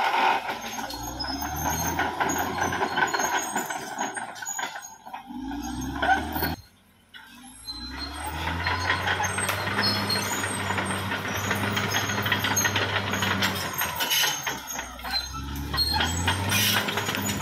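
Caterpillar D6R XL bulldozer working: its diesel engine runs steadily under load, with metallic clanks and squeaks over it. The sound drops out briefly about seven seconds in, then resumes.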